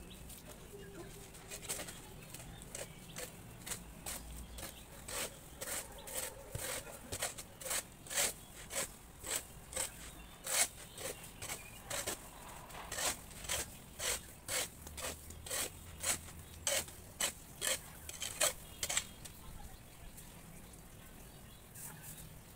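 Quick rhythmic scraping strokes on a wet cement-plaster wall from hand finishing work, about two a second, stopping a few seconds before the end.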